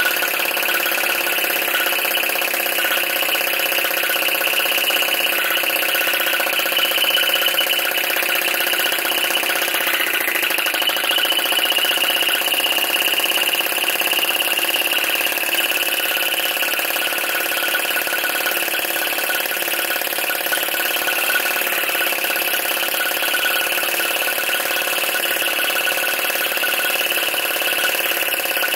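PM Research Solar Engine No. 3 flame-gulper (vacuum) engine running steadily, drawing its methylated-spirits burner flame into the cylinder.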